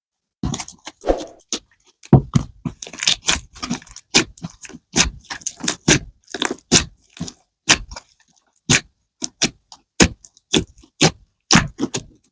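Slime being pressed and squished by hand, giving off irregular sharp pops and clicks, several a second, with brief pauses.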